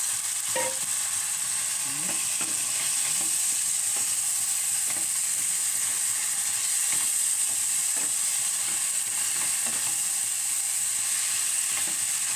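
Fried onion and spice masala, with yogurt just stirred in, sizzling steadily in a frying pan, while a wooden spatula stirs it with irregular scraping strokes against the pan.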